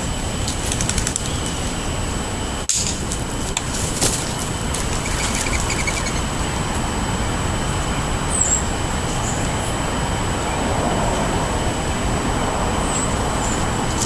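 Wild turkeys pecking birdseed off asphalt, giving a scatter of sharp taps in the first four seconds, over a steady background rumble. Small birds chirp briefly a few times, around the middle and near the end.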